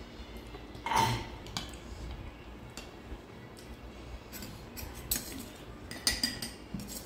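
Utensils and hands clinking and scraping against plates while eating. There is a sharp ringing clink about a second in and a few more clinks around five and six seconds in.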